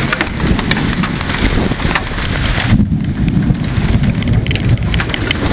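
Heavy rain and marble-sized hail coming down, a dense hiss with scattered sharp ticks of hailstones striking, over a heavy low rumble. About three seconds in, the hiss turns muffled and the low rumble takes over.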